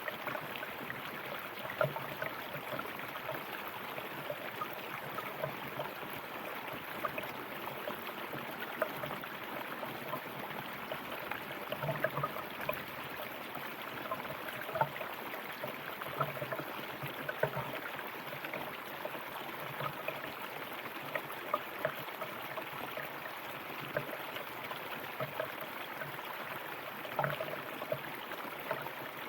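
River water flowing steadily over stones, with continual small splashes and gurgles.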